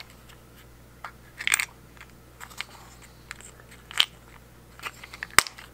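Small hinged plastic box of taps being handled and snapped open, giving light clicks and rattles, with the sharpest click near the end.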